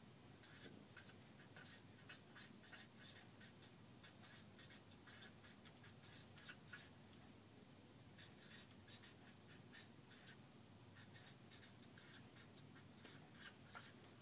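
Faint scratching of writing strokes, about two or three a second in uneven runs with short pauses.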